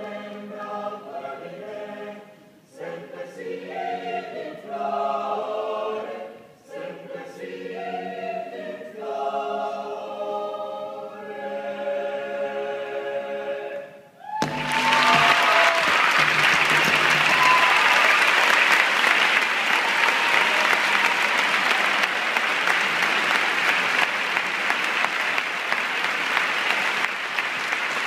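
A choir singing in several voices, closing on a held chord about fourteen seconds in. The hall then breaks at once into loud, sustained applause.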